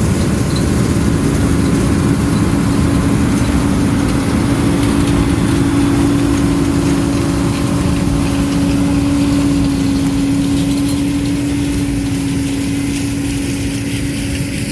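Combine harvester running steadily while harvesting soybeans: a loud, even engine and machine drone with a steady hum tone that swells in the middle.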